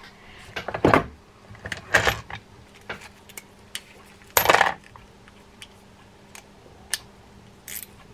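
Metal tools clinking as a steel deep socket is handled and fitted onto its driver: a few sharp clinks, the loudest about four and a half seconds in, with lighter ticks between.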